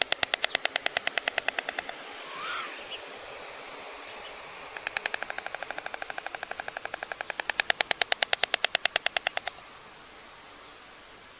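White storks clattering their bills: two bouts of rapid, even wooden clacking. The first fades out about two seconds in. The second starts about five seconds in, grows louder and stops abruptly near the end, leaving a steady hiss from the webcam microphone.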